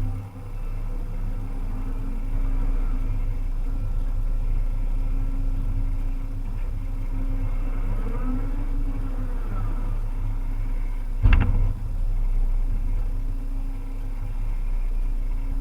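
Volvo EC300EL excavator's diesel engine running steadily at work, with faint whines rising and falling around the middle. A single sharp knock comes about eleven seconds in.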